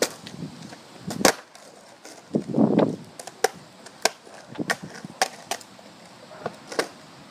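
Skateboard on concrete: a series of sharp wooden clacks as the deck and wheels hit the ground, the loudest about a second in. A short rough rolling scrape comes about two and a half seconds in.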